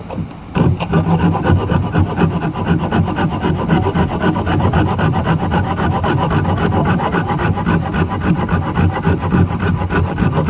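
Japanese pull saw cutting the stub of a wooden dowel flush with the surface, in rapid, even strokes that start about half a second in.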